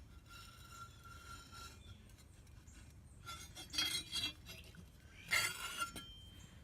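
Metal straight edge scraping and clinking on the flat face of an anvil: a faint ringing tone dies away about two seconds in, then two short bursts of light metallic scrapes and clinks follow.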